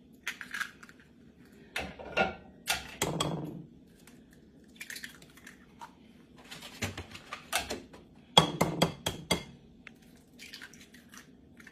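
Eggs being cracked on the rim of a mixing bowl: scattered sharp taps and clicks of shell against the bowl, with a quick run of knocks about eight to nine seconds in.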